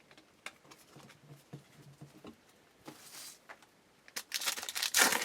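Faint clicks of trading cards being handled, then from about four seconds in the loud crinkling and tearing of a baseball card pack's wrapper being ripped open.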